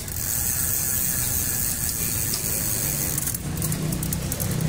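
Bicycle rear drivetrain spinning freely on a stand: the chain running over the Shimano Tourney 8-speed rear cassette and derailleur with a steady hiss and rattle, changing about three and a half seconds in to a run of fine rapid clicks.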